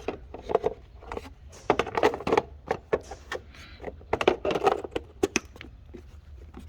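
Irregular clicks and light knocks of objects being handled, scattered through the whole stretch.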